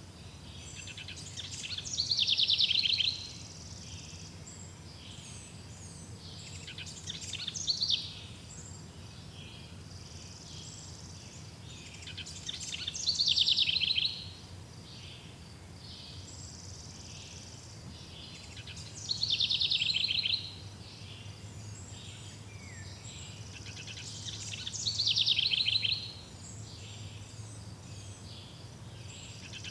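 A songbird singing the same short phrase over and over, about once every five or six seconds: each phrase is a fast trill of high notes, about one and a half to two seconds long, that grows louder and then stops abruptly. Faint chirping of other birds or insects runs steadily underneath.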